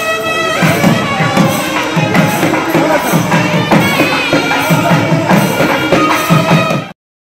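Live South Indian temple music: nadaswaram-type reed pipes playing a wavering, ornamented melody over steady drum beats. It cuts off abruptly near the end.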